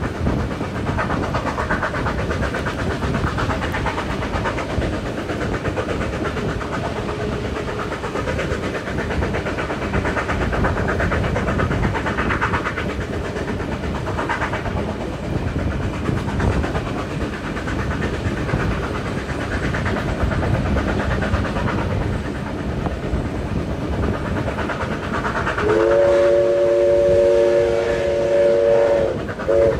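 Heritage carriage running behind steam locomotive 5917, with steady wheel-and-rail clatter and rumble heard through an open window. Near the end the locomotive's steam whistle sounds one long chord-like blast of about three seconds, followed by a short toot.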